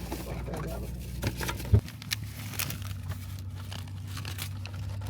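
Rustling and crinkling handling noise with scattered clicks, and one sharp thump a little under two seconds in.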